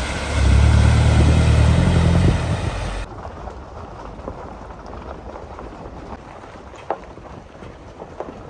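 Off-road 4x4's engine running under load on a trail, loudest for about two seconds, then cut off abruptly about three seconds in. After that come quieter wind and scattered light clicks and crunches.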